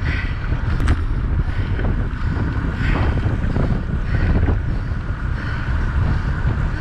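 Wind buffeting the microphone of an action camera on a moving road bike: a steady low rumble.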